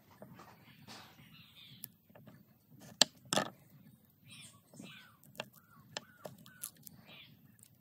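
Birds chirping and calling, with scattered sharp clicks and knocks; the loudest knock comes about three seconds in, with another right after it.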